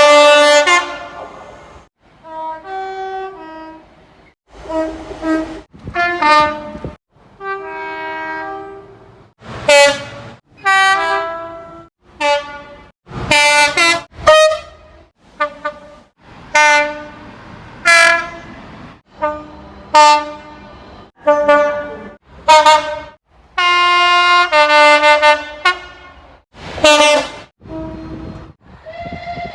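British railway locomotive and multiple-unit horns sounding in quick succession, about twenty short blasts in high and low tones, each about a second long, starting and stopping abruptly between clips.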